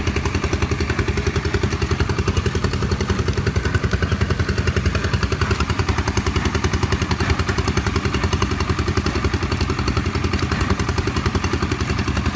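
Small engine running steadily at an even speed, with a fast regular beat and a low hum.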